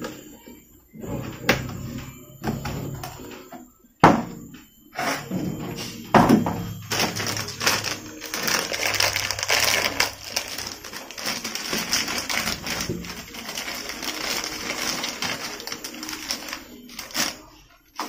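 Hard plastic knocks and clicks as toilet cistern fittings are handled, the loudest about four seconds in. From about seven seconds a long crackling rustle full of small clicks follows, ending shortly before the close.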